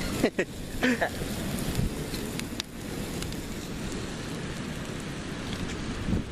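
Large gasoline-fed bonfire burning with a steady rushing noise and a few sharp crackles, mixed with rain and wind.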